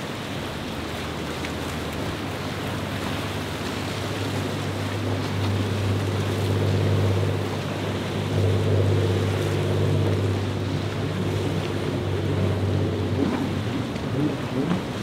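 Large motor yacht's engines running with a steady low drone under the rush and splash of its bow wake through choppy water, with wind buffeting the microphone. A wavering higher engine note comes in near the end.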